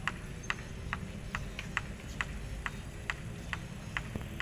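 A steady, even ticking, a little over two short ticks a second, over a low, steady rumble.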